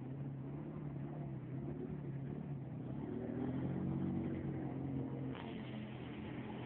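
Kymco MXU 300 ATV's single-cylinder engine running as it drifts, the revs climbing and falling again around the middle. A steady hiss comes in about five seconds in.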